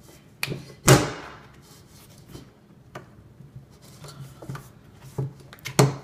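Hands working the bead of a rubber bicycle-type tire onto a wheelchair wheel's rim: light rubbing and rustling of the tire, broken by scattered handling knocks and clacks. A sharp knock comes about a second in and another near the end.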